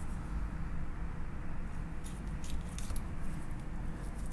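Sushi knife cutting sinew away from a raw tuna loin on a wooden cutting board, with a handful of light clicks in the second half over a steady low room rumble.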